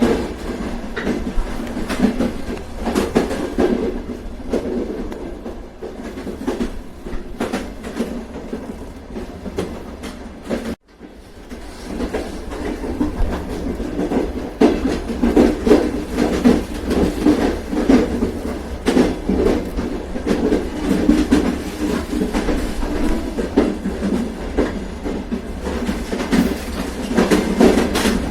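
Train running along the track: a steady rumble with wheels clicking over rail joints. There is a momentary drop-out about eleven seconds in.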